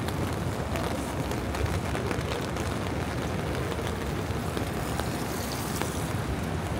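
Steady traffic noise of a wet city street in the rain, a constant rush with a few faint light ticks.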